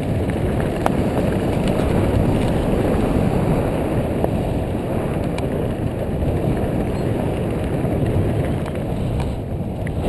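Mountain bike rolling downhill: wind buffeting the microphone over a steady rumble of tyres on dirt, with a few light clicks and rattles from the bike.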